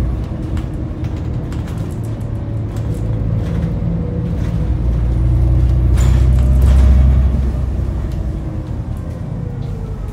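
Diesel engine and drivetrain of an Alexander ALX400 double-decker bus, heard from inside the lower deck while it drives: a deep rumble that swells about five seconds in and eases off again a couple of seconds later, with interior panels and fittings rattling throughout.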